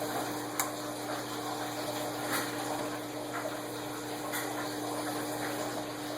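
Packaging being handled, with a few brief handling sounds over a steady background hiss and hum.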